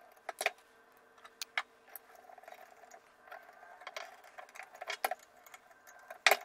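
Scattered small clicks and ticks of a hex screwdriver and small screws against a carbon-fibre drone frame as screws are driven in, over a faint steady hum. The loudest click comes near the end.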